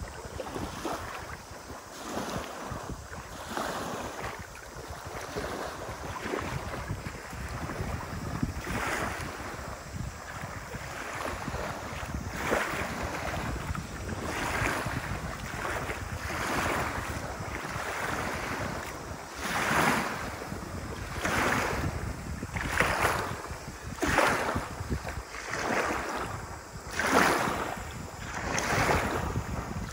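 Small lake waves lapping and washing up a pebble shore, one wash every second or two, growing stronger from about halfway through, with wind rumbling on the microphone.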